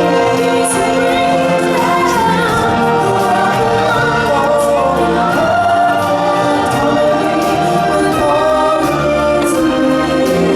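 A choir of singers singing a song from the show over full musical backing, loud and without a pause.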